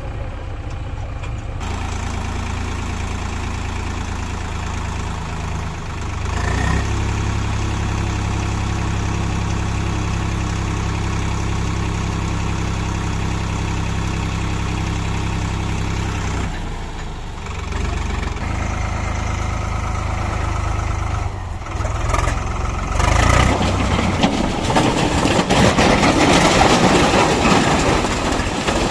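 Heavy diesel engine running steadily. It revs up about six seconds in and settles back about ten seconds later. Near the end a louder, rough clattering noise comes in over it.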